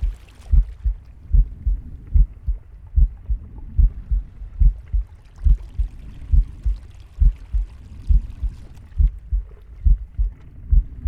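Heartbeat heard up close: steady pairs of low lub-dub thumps, a little over one beat a second, with a faint breathing hiss around the middle.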